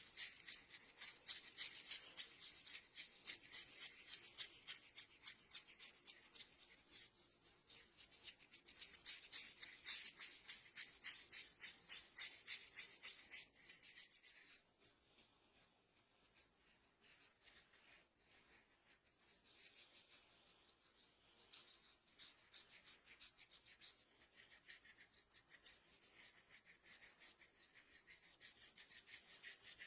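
Hands rubbing briskly through hair and over the scalp in quick, rasping strokes. Louder for about the first half, they drop away about halfway through, then resume more softly.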